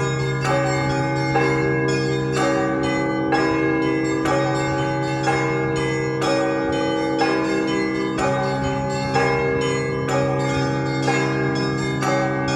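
Russian Orthodox festive peal (prazdnichny zvon) on a large set of church bells: the small bells are struck in a quick repeating pattern over a heavy strike about once a second, while the big bells' low hum rings on underneath.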